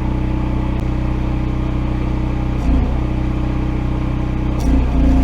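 Gasoline engine of a Hobart Champion 145 engine-driven welder/generator running steadily, its pitch dipping and recovering briefly twice, about halfway through and near the end.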